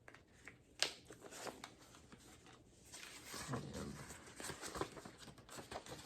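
Handling a CD jewel case and its paper booklet: a sharp plastic click about a second in, then paper rustling mixed with light clicks.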